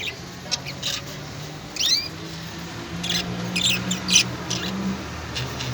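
Small birds chirping in short, scattered high calls, with a quick rising chirp about two seconds in and a cluster of chirps past the middle.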